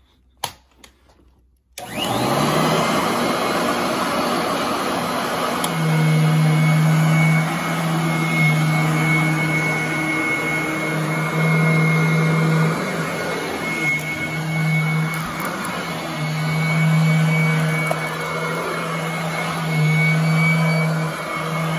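Royal commercial upright vacuum switched on about two seconds in, then running as it is pushed over carpet. The motor screams with a steady high whine, and a lower hum swells and fades every few seconds.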